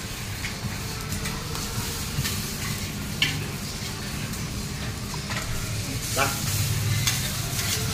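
Food sizzling steadily on a hot flat-top griddle, with a few short clicks spaced a few seconds apart.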